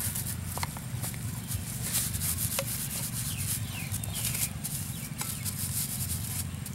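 A cleaver blade rubbing and scraping over a crinkly thin wrapper sheet on a wooden chopping board, with a few sharp ticks of the blade on the wood. A few faint short chirps come midway, and a steady low hum sits underneath.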